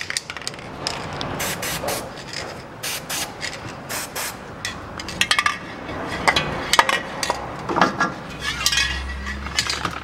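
Aerosol lubricant can sprayed in short bursts onto the threaded stud of a steering tie-rod end, among many sharp clicks and knocks.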